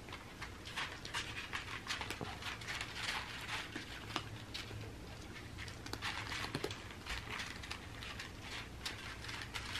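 Several cats crunching dry kibble from paper plates: quick, irregular crunches and clicks throughout.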